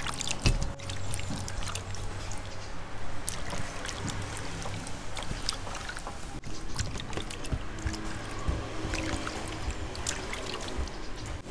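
Water splashing and trickling, with scattered clicks and knocks, over background music.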